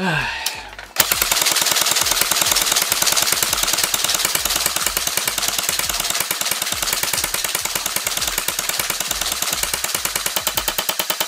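Airsoft gun firing on full auto: a long, unbroken stream of rapid shots starting about a second in and cutting off suddenly, after a short falling sound at the very start.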